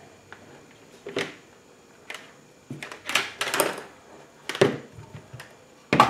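Hands handling spliced charger wires on a tabletop: a series of short rustles, scrapes and light knocks, the busiest stretch a little past the middle.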